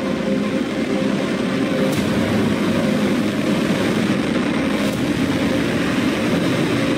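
SpaceX Starship's Raptor rocket engines firing during the landing burn: a steady, loud, low rumble with no clear pitch.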